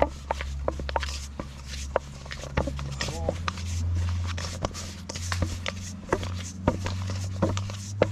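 Dumpling dough being mixed by hand in a bowl: irregular clicks and taps, over a steady low hum.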